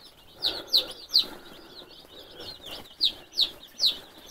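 Freedom Ranger chicks peeping: a steady run of short, high, falling peeps, several a second, from a crowded brood of chicks.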